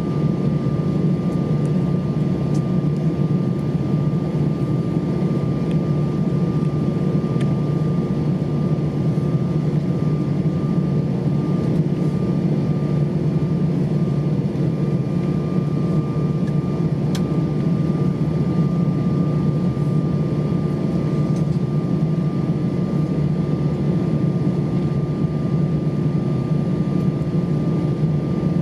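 Steady cabin noise inside an Airbus A320 airliner: an unchanging low drone with a thin, faint steady whine above it and a few light ticks.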